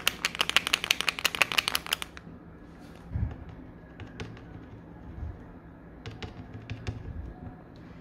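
A fast, even run of sharp clicks for about two seconds, then scattered light ticks and a few soft knocks as a pen and hands work on a plastic bottle on a tabletop.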